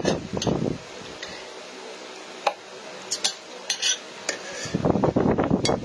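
A spoon clinking and scraping against a plate while eating: a string of short, separate clinks spread across the few seconds.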